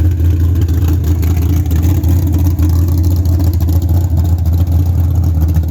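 Chevrolet Nova's 427 V8 with a solid-roller camshaft idling steadily with a deep, even rumble.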